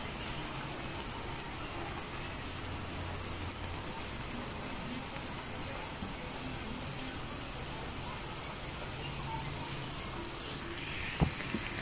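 Minced meat cooking in a frying pan, a steady soft sizzling hiss. There is a light knock near the end.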